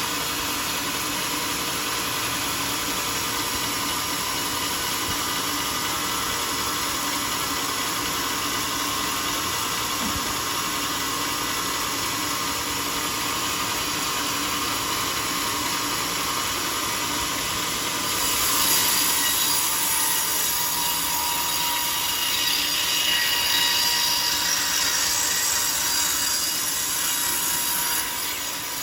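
A sawmill running steadily with a faint whine. About eighteen seconds in, the blade cuts into the teak log with a louder hiss that lasts about ten seconds, then drops back to the idle running sound.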